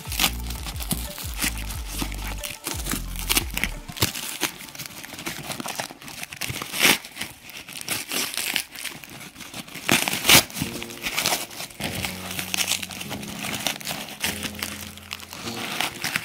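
Tightly wrapped corrugated cardboard packaging being torn open and crumpled by hand: irregular rips and crinkles, the loudest rips about seven and ten seconds in.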